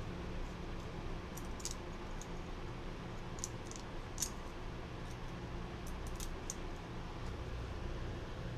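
Light clicks and taps of small quadcopter frame parts (plates, standoffs, screws) being handled and fitted together, in a few scattered clusters over a steady low hum.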